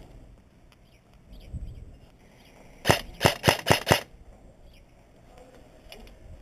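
Silverback PP19 Bizon airsoft electric gun (AEG) firing five quick shots in about a second, roughly three seconds in.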